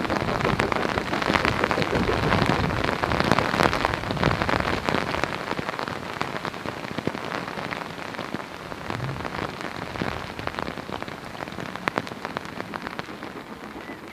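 Heavy rain falling, a dense hiss broken by many sharp drop ticks, growing quieter in the second half.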